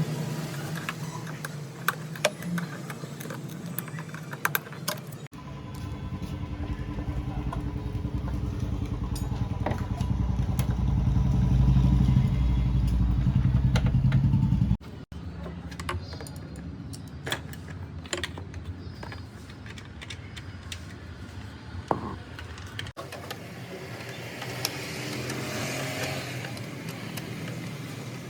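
Metal tools clinking and tapping on a motorcycle during servicing, with a motor running low and steady, and growing louder, through the middle stretch.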